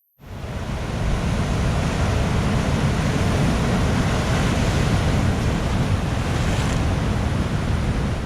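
Large ocean swell surging and breaking on the shore ahead of an approaching typhoon, with wind buffeting the microphone. The sound cuts in suddenly and stays steady.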